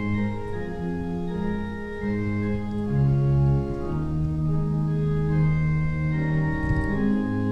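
Organ postlude closing the service: slow held chords that change every second or so.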